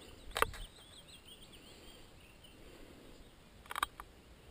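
Faint birdsong of quick, high, wavering chirps that fade out about halfway through. Two sharp clicks stand out, one about half a second in and one near the end.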